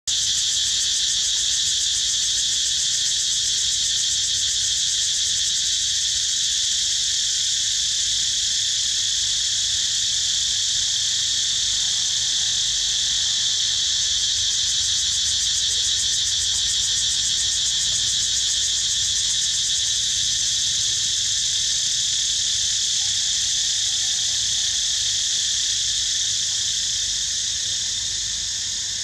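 Dense chorus of insects: a steady, high-pitched drone that eases slightly near the end.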